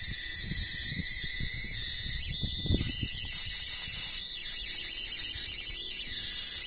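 Steady high-pitched electrical whine and hiss from a battery-and-inverter-driven high-voltage coil circuit running under load, with an irregular low rumble underneath.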